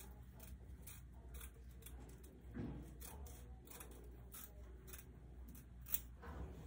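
Small scissors snipping through the lace of a lace-front wig: a string of quiet, irregular snips, the sharpest one near the end.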